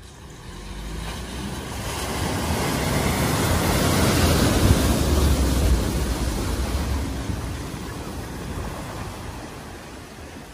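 A van driving through deep, fast-flowing floodwater: a rushing wash of water and low engine rumble that swells as it passes close, about halfway through, then fades as it pulls away, over the steady rush of the flooded stream.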